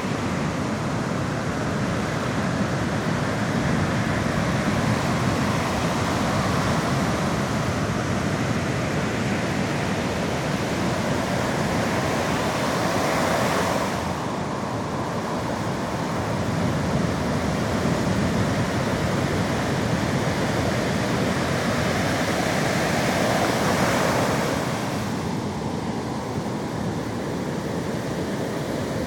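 Sea waves surging and washing on the shore: a steady rush that swells up twice, cresting about halfway through and again near the end before falling back.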